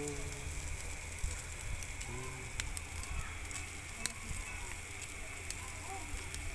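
Charcoal barbecue grill sizzling, with scattered sharp crackles and pops over a steady hiss.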